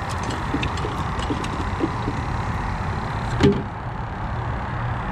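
A hand picking through a plastic bait bucket of water for a live shrimp, with a few faint small ticks, then the bucket's plastic lid shut with a single sharp clack about three and a half seconds in. A steady low rumble runs underneath.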